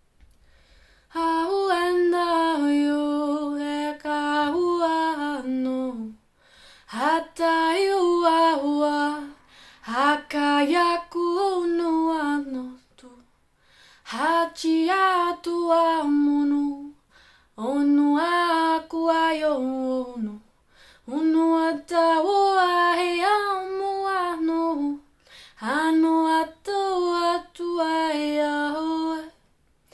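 A woman singing solo and unaccompanied in 'light language': improvised, wordless syllables in about seven short melodic phrases, each a few seconds long with gliding pitch, separated by brief pauses for breath.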